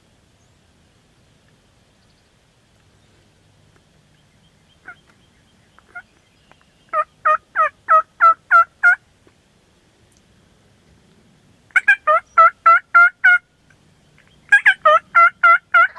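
Turkey yelping: after two faint single notes, three loud runs of six or seven evenly spaced yelps, about three to four a second.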